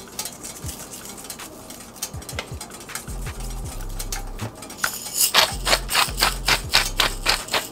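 Black pepper being seasoned onto raw fish fillets from above: a rapid run of sharp clicks about five seconds in, lasting a couple of seconds.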